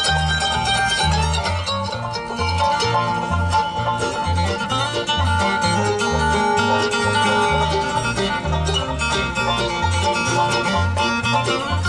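Bluegrass band playing an instrumental passage with no singing: mandolin and acoustic guitar picking along with banjo, over steady bass notes on the beat.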